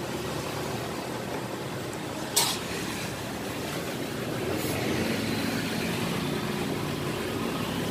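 Steady background road-traffic noise from the street, with one sharp click about two and a half seconds in.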